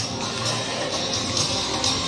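Recorded music played over loudspeakers at a steady level.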